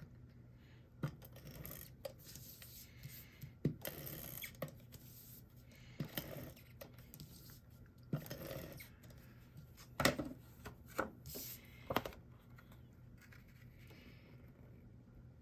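Cardstock being handled and stuck down on a tabletop: scattered light clicks and taps with short rubbing rustles as a paper layer is adhered and pressed in place.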